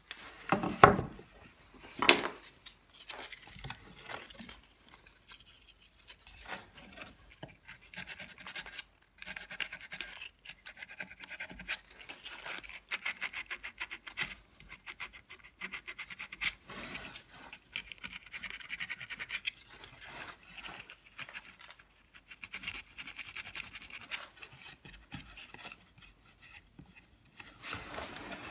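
Hand carving tool scraping and scratching at a carved cherub relief, a quick run of small scrapes and clicks, with two louder knocks in the first couple of seconds.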